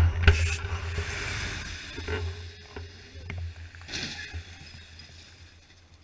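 Tyres running through standing floodwater, with water splashing and a low steady rumble; sharp splashes stand out just after the start and again about four seconds in, and the sound fades toward the end.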